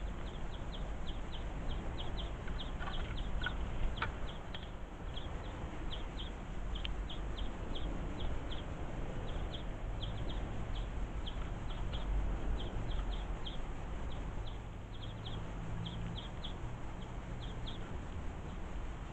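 House sparrow chirping, a long run of short, high cheeps two or three a second with brief pauses, over a low background rumble.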